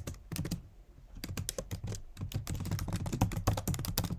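Typing on a computer keyboard: a quick run of key clicks, a short lull about a second in, then fast, continuous typing.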